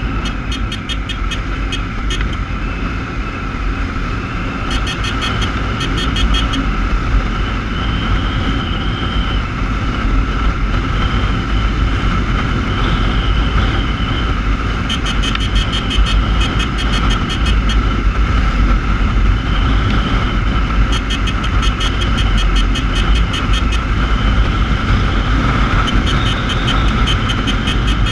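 Motorcycle riding at speed in traffic: steady engine noise and heavy wind rumble on the microphone. Bursts of rapid, even high ticking come and go several times.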